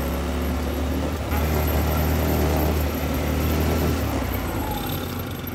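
ATV engine running while riding, a steady low drone that gets louder about a second in.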